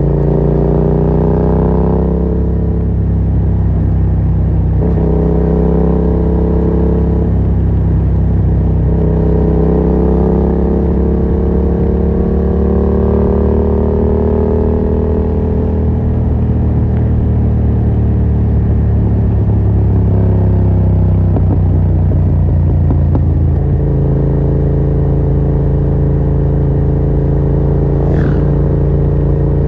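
Yamaha MT-07's 689 cc crossplane parallel-twin running through a Yoshimura R77 exhaust with no dB killer, on the move. The engine note rises and eases off several times with the throttle, then holds steady for the last few seconds.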